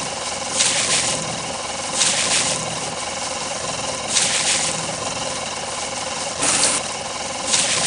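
A toy fire helicopter's motor sound effect hums steadily, with five short hissing water-spray bursts about every one to two seconds as it puts out the fires.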